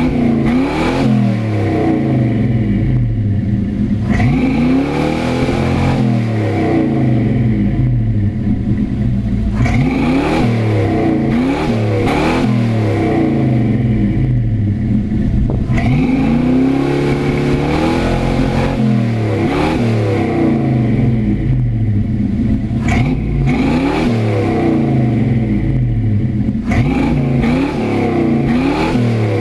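Chevrolet 350 (5.7 L) V8 running through stock manifolds and a dual exhaust with Flowmaster 40 Series mufflers and no catalytic converters. It is blipped again and again from idle, a short rev every few seconds that rises in pitch and drops back.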